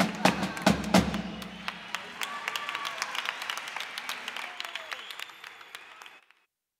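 Live murga carnival music: drum beats with a melody over them, fading down and cutting off to silence about six seconds in.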